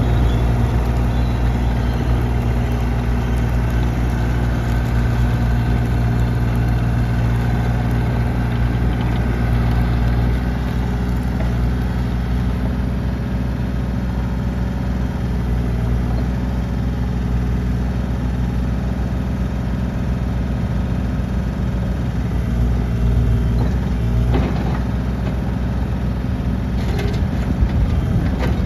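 2020 Bobcat E32 mini excavator's diesel engine running steadily while the machine tracks over gravel and works its boom, with a couple of clanks near the end.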